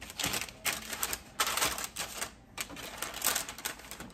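Parchment paper crackling and rustling on a baking pan as raw biscuit-dough rounds are set down on it, an irregular run of crackles and light taps.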